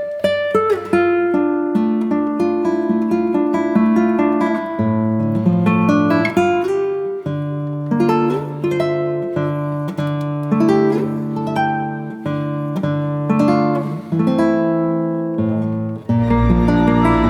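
Background music: an acoustic guitar picking a melody over bass notes, with the arrangement filling out near the end.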